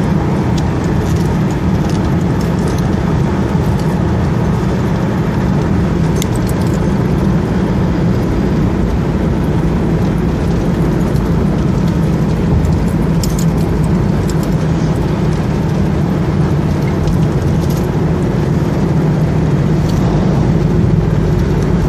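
Steady drone of a car driving along a highway, with engine and tyre noise heard from inside the cabin. A few faint rattles come through.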